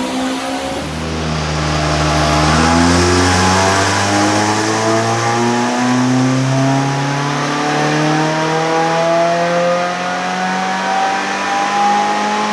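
2015 Subaru WRX's turbocharged engine, fitted with a J-pipe, intake and cat-back exhaust, making a dyno pull. The revs climb steadily from low in the range for about twelve seconds, then drop off abruptly at the end as the throttle closes.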